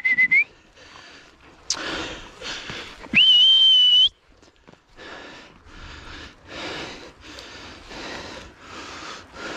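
A person whistles sharply twice. The first whistle ends just as the sound begins, and the second, about three seconds in, is higher, louder and held for about a second. Then comes heavy, rhythmic breathing, about one and a half breaths a second, as if from exertion.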